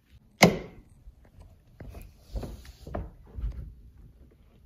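A sharp clink about half a second in, then footsteps thudding dully down carpeted stairs, several heavy steps near the middle and later part.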